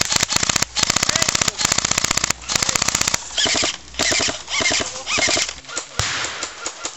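Airsoft electric rifle fire on full auto: a fast, even rattle of shots in several quick bursts through the first three seconds, then quieter, patchier sound.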